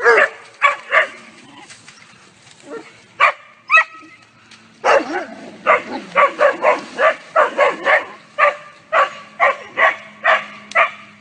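Dog barking: a few separate barks in the first four seconds, then a fast, unbroken run of barks, about three to four a second, from about five seconds in.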